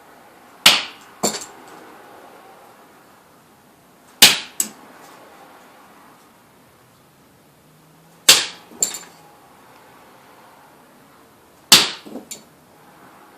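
Popsicle-stick bombs thrown onto a hard surface, each bursting apart with a sharp crack and a smaller crack of scattering sticks about half a second later; four go off, three to four seconds apart.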